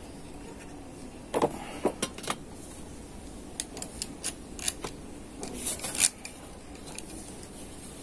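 Scattered light clicks and metallic clatter as the sheet-metal chassis and cover of a Lenovo ThinkCentre M73z all-in-one PC are handled and fitted back together. The loudest knock comes about six seconds in.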